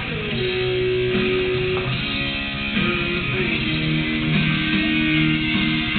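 Guitar music, with held notes that change pitch every second or so.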